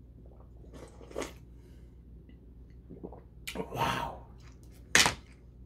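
Slurping the last of the sauce from a tipped-up bowl, then a breathy exhale, and about five seconds in a sharp knock, the loudest sound, as the ceramic bowl is set down on the tray.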